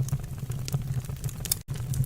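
Wood fire burning in a fireplace: a steady low rumble with irregular sharp crackles and pops. The sound cuts out for an instant near the end.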